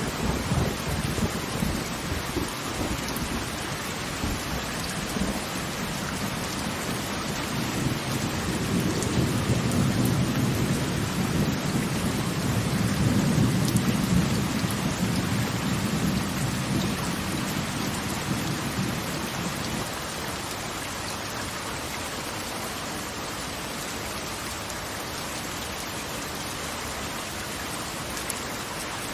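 Steady hiss of falling water, with a low rolling rumble that swells through the middle and dies away about two-thirds of the way through.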